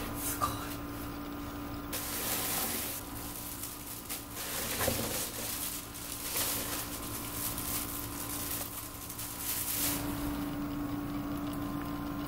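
Plastic bags and kraft paper rustling and crinkling in irregular bursts as bagged plants are lifted out of a cardboard box.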